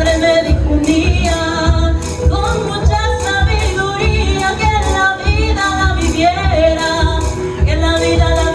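Music: a song with a woman singing over a steady bass beat.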